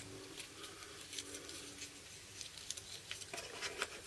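Faint, scattered light clicks and taps of small drill bits and their case being handled, a little busier near the end.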